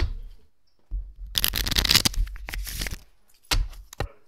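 Objects being handled: a sharp click, then about two seconds of dense, hissy rasping noise, then two short knocks near the end.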